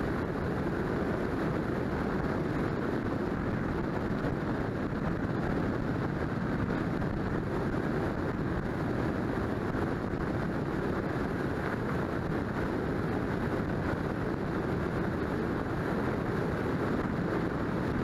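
Steady rush of wind and tyre noise from a car cruising at highway speed.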